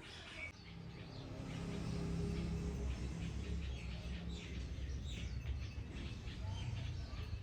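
Birds chirping in short repeated calls over a steady low rumble.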